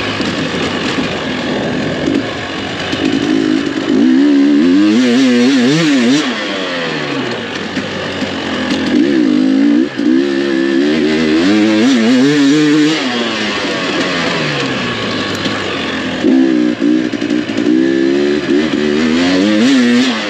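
GasGas EC300 two-stroke single-cylinder dirt bike engine pulling hard and backing off in three long surges, the revs climbing and wavering at the top of each before dropping back.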